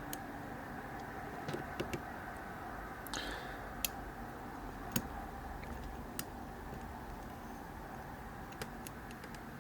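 Sparse light clicks, with a short scrape about three seconds in, from a lock pick and tension tool working the pin stacks inside a five-pin Vachette euro cylinder.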